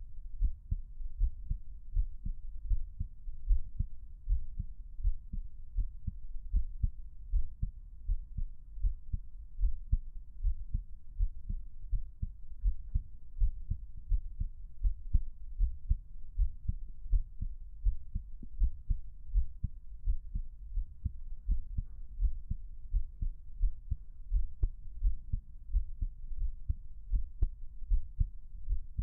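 A man's heartbeat recorded close up: a steady, regular run of low, dull beats.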